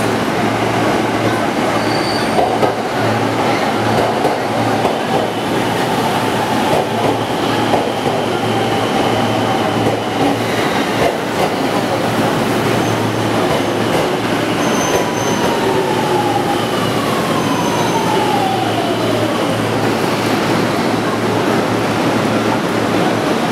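Tokyo Rinkai Line 70-000 series electric commuter train pulling into a station platform and braking to a stop: a steady rumble of wheels on rail. Later on, a whine falls in pitch over several seconds as the train slows.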